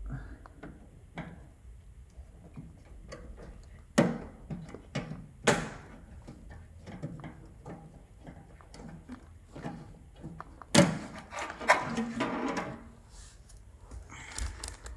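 Sharp clicks and knocks of plastic microwave door parts being pried apart and handled, with a longer clatter of parts about eleven seconds in.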